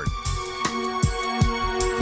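Background music: held notes over a steady drum beat.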